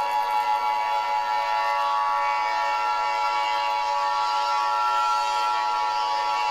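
Emergency Alert System attention signal: the steady two-tone alarm (853 Hz and 960 Hz sounded together), held unbroken, announcing that an emergency alert message follows.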